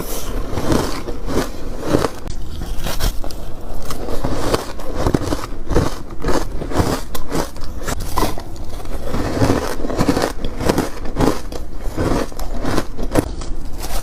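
Ice being bitten and chewed close to the microphone: loud, crisp crunches coming a few times a second.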